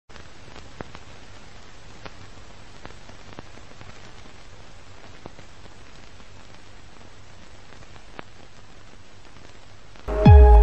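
Steady static hiss with scattered faint crackles and clicks. About ten seconds in, a loud musical hit with a deep bass note sliding downward breaks in.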